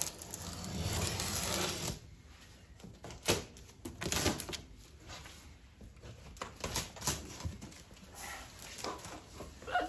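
Packing tape on a cardboard box being slit with a small cutter and pulled away. A longer scraping rasp in the first two seconds, then scattered short scrapes, rustles and clicks of tape and cardboard being handled.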